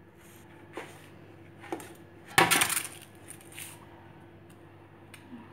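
Hands kneading stiff flour dough in a steel bowl: faint knocks and rubbing, with one louder sharp clatter about two and a half seconds in that lasts about half a second.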